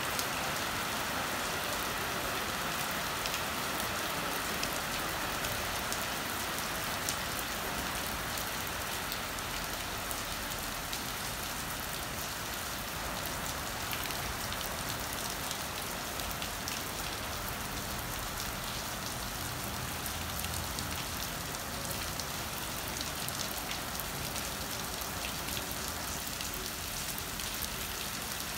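Steady rain falling on wet paving stones and puddles: an even hiss full of small drop splashes and ticks.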